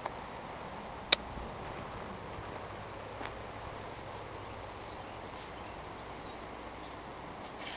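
Faint, brief bird chirps over a steady outdoor hiss, with a sharp click about a second in and a softer one a couple of seconds later.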